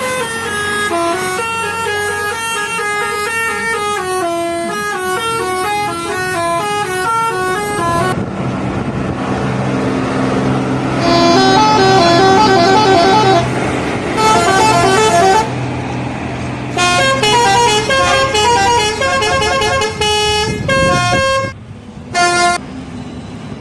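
Telolet horns of Indonesian buses: multi-tone horns playing quick runs of stepped notes, several buses one after another with abrupt changes between them. A bus engine runs low beneath the horn in the middle.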